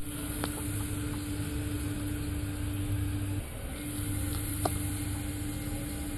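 Doosan DNM 5700L vertical machining center drilling with a 1/2-inch Kennametal GOdrill at 3280 RPM, with through-spindle coolant on: a steady spindle hum carrying a steady tone that breaks off briefly a little past halfway, over coolant hiss.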